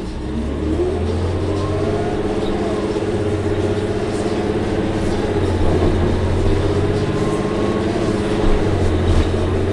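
Orion VII NG bus's Cummins ISL-G natural-gas engine, heard from inside the cabin, pulling away with engine and transmission tones climbing in pitch during the first second, then running steadily under load.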